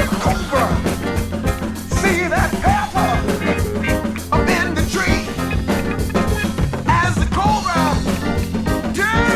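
Instrumental break of a funk song: a steady bass line and drum beat under a lead part that slides and bends up and down in pitch.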